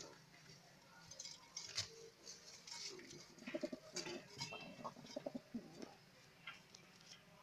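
American fantail pigeons cooing in short repeated phrases, the courtship coo of a displaying male with tail fanned, mixed with light clicks and scuffs.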